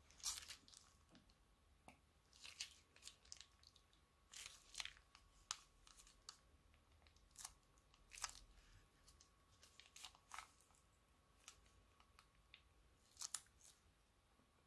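Faint, irregular crackles and sticky pops as clear slime is squeezed from a plastic piping bag into a glass bowl, the bag crinkling under the fingers.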